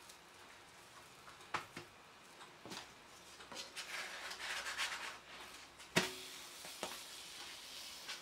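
Hands smoothing and patting a thin filled dough sheet (gözleme) flat on the plate of an electric grill: soft rubbing and rustling with a few light clicks, and one sharp knock about six seconds in.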